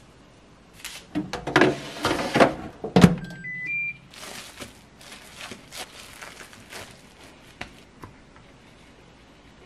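A baking tray clattering into a Hitachi MRO-S1KS microwave oven, the door shut with a thunk, then three short beeps rising in pitch from its keypad as the 15-minute bake is set. Plastic wrap rustles afterwards.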